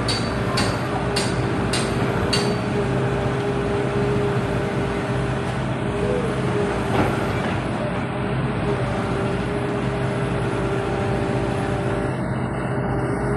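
Heavy diesel construction machine running steadily, a low pulsing rumble with a steady hum over it. Sharp regular clicks about every 0.6 s stop about two and a half seconds in.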